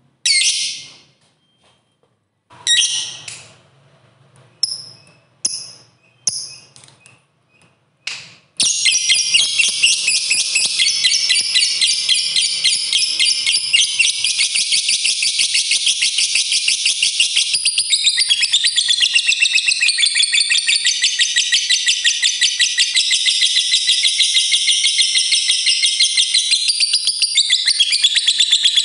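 Lovebird giving several short, shrill calls, then from about eight seconds in a long, unbroken, rapid chattering trill, the prized 'ngekek panjang' of a fighter lovebird.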